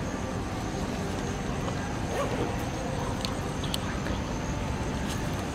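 Steady outdoor background rumble, with a few faint short high clicks or chirps past the middle.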